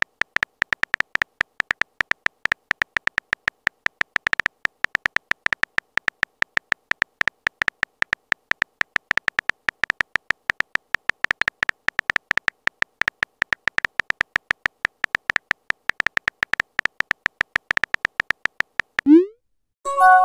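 Synthetic keyboard-click typing sound effect of a texting-story app, a rapid, even stream of short clicks, many a second, as a message is typed. Near the end a short rising swoop plays as the message is sent.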